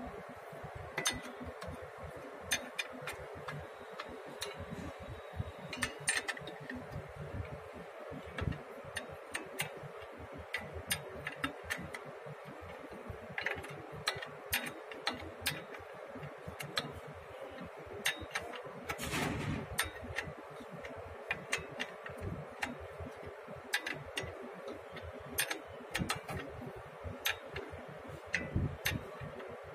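Irregular light clicks and metallic taps, with one longer rasp about nineteen seconds in, from a spanner working the mounting bolts of a diesel generator's alternator.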